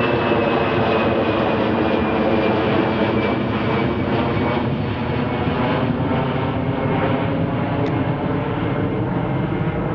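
Airbus A319 jet engines at takeoff climb power as the airliner passes overhead and climbs away: a steady loud roar with a thin whine that slowly drops in pitch, easing slightly in loudness over the second half.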